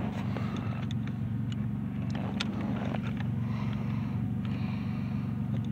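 A steady low mechanical hum, like an engine running, with a few faint short clicks and taps of hand work on the steering-column ignition lock.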